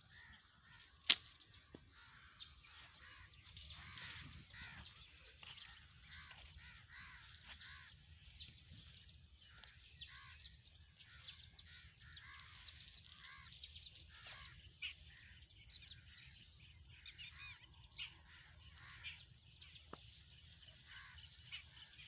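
A single sharp snap of a slingshot being released about a second in, then birds calling with many short chirps.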